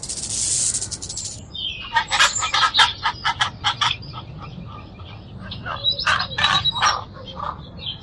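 A fast buzzing trill for about the first second and a half, then a bird calling in two spells of rapid, harsh squawks and chirps.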